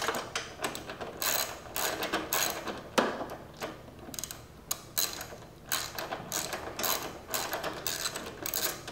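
Hand ratchet with a 12 mm socket clicking in quick runs as it backs out a 12 mm bolt, the pawl ticking on each return stroke, with a quieter pause around the middle.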